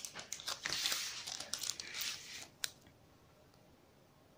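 Crinkling of a foil-and-plastic blister packet holding a phone ring holder as it is handled, with crackles and sharp clicks; it stops about two and a half seconds in, leaving faint room tone.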